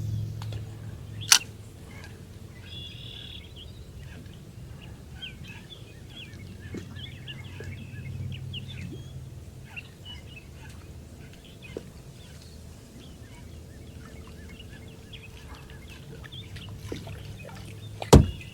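Small birds chirping and calling throughout over a low steady background rumble, with a sharp click about a second in and a loud hard knock near the end.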